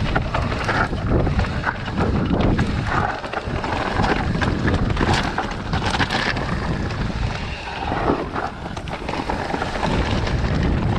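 Wind buffeting the microphone while a Commencal Meta Power electric mountain bike rolls over loose rocky singletrack, the tyres crunching on stones and the bike rattling with many small knocks.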